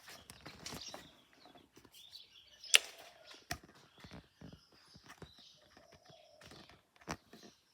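Garage door worked by a Merlin Commander Elite opener, clicking and knocking unevenly, with a sharp loud click a little under three seconds in and another near the end.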